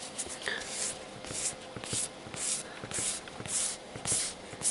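Rhythmic swishing strokes, about two a second, of a gloved hand rubbing a grey pad over a primed car body panel.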